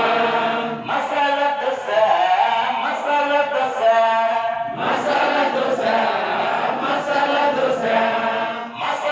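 A group of adult voices chanting a rhyme together in unison, in short repeated phrases.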